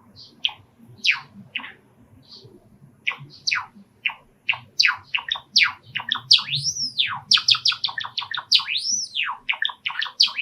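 Male cherry (sakura) Java sparrow singing its song: sharp falling chip notes that speed up into a fast run, broken by a few long, arched whistled notes.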